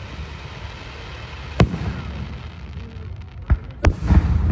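Aerial firework shells bursting: a single bang about a third of the way in, two more close together near the end, then a quick cluster of bangs, over a steady low rumble.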